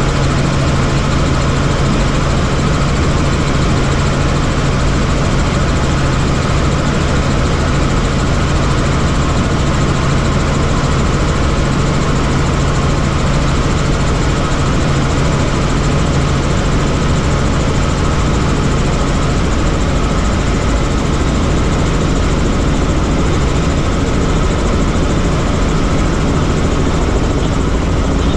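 Helicopter running in flight: a steady, loud drone of rotor and engine noise. A low hum within it drops away about two-thirds of the way through.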